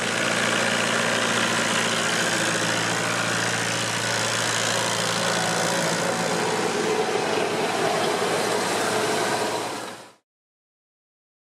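Massey Ferguson 5425 tractor's diesel engine running steadily as it pulls a seed drill across tilled soil, fading out about ten seconds in.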